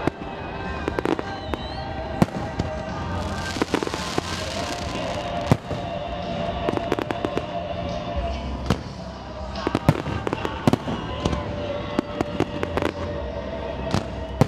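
Fireworks display: aerial shells bursting in an irregular series of sharp bangs, with a dense cluster of bangs near the end.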